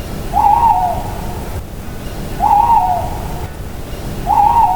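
Owl hooting three times, about two seconds apart, each hoot short and wavering, over a steady low rushing background.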